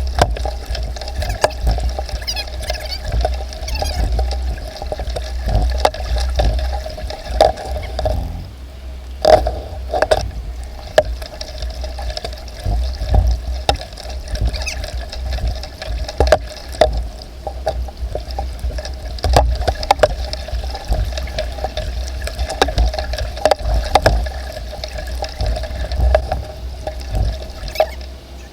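Water sounds from a kayak being paddled: paddle blades dipping and splashing, with water running and dripping, and many small knocks throughout.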